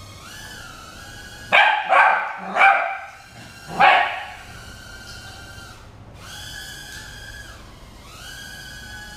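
Border Collie puppy barking four times in quick succession, sharp yappy barks about one and a half to four seconds in. Underneath, the high whine of a mini quadcopter drone's motors rises and falls in steps as its throttle changes.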